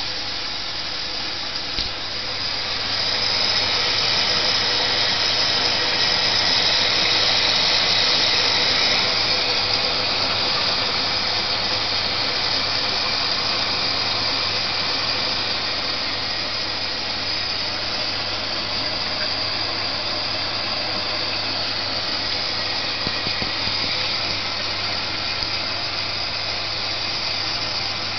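Late-1980s Zanussi-built Zoppas P 448 X washing machine filling with water at the start of a wash: a steady hiss of water rushing in over a low hum. The hiss swells a few seconds in and eases slightly later on.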